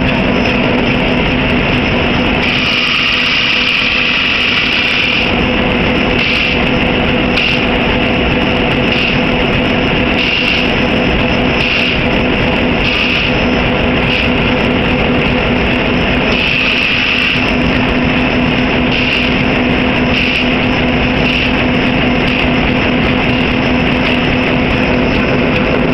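2cwt Alldays & Onions pneumatic power hammer and workshop machinery running with a loud, steady hum, broken every second or two by short spells of harsher, higher noise.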